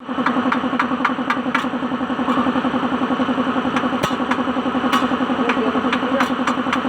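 Suzuki DA16 minitruck engine idling steadily with a fast, even pulse, with sharp clicks every so often.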